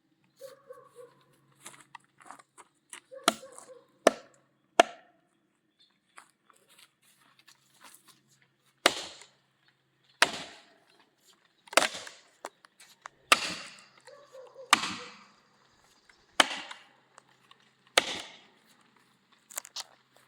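Hammer blows driving splitting wedges into a large black oak log to split it apart along a half-depth saw cut. The strikes come singly, three close together early on, then a steady run of about one every one and a half seconds.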